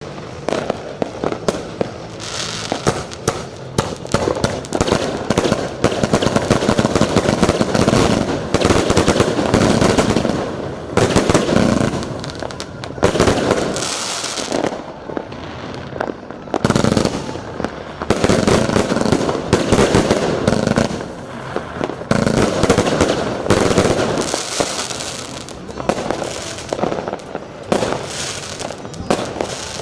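Broekhoff Crown Majestic 281-shot firework cake firing a rapid, continuous barrage of shots and aerial bursts. The barrage comes in waves, swelling and easing every few seconds.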